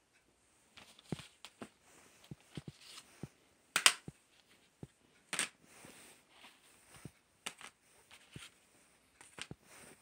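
Plastic CD jewel cases being handled and shifted against each other, giving scattered small clicks and clacks. There are two louder clacks, a little before four seconds in and about five and a half seconds in.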